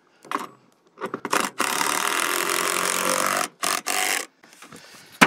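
Power drill run in a few short bursts, then steadily for about two seconds, then in two more short bursts near the end, as it drives a fastener holding a bait hive to a tree trunk.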